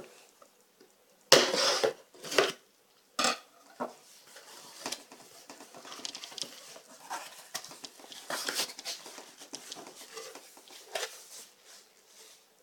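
Packing tape ripped off a cardboard box in three quick tears about a second in, then a run of rustling and crinkling as the cardboard flaps are opened and the foam packing peanuts shift.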